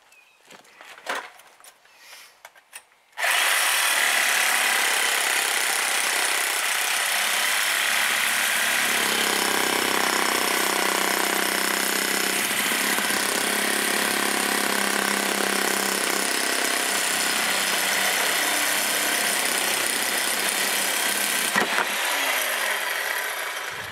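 Cheap Harbor Freight reciprocating saw with a dull blade cutting into a cast differential housing. After a few seconds of light handling clatter, the saw starts and runs loud and steady, then tails off near the end.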